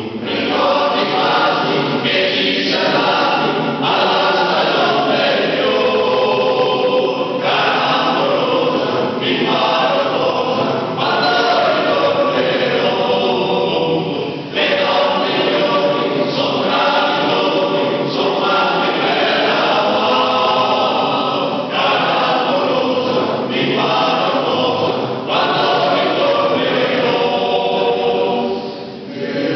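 Male choir singing in long, sustained phrases, with short breaks between phrases about halfway through and near the end. The singing carries the echo of a large church interior.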